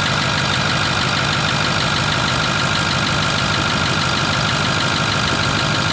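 Ford F-250's 6.4 L Power Stroke V8 turbodiesel idling cold, just after starting, with a steady high whine over an even rhythmic clatter. This is the noise the owner is concerned about, though its cause is not named.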